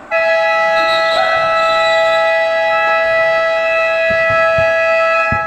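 A long, loud electronic buzzer or horn sounding one steady chord of several held tones, coming on suddenly and cutting off after about five seconds.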